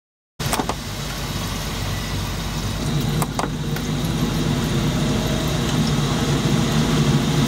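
Vaillant ecoTEC gas boiler running, a steady fan-and-burner hum with a low drone and a few light clicks about three seconds in. The boiler is firing normally without overheating, its heat exchanger freshly flushed.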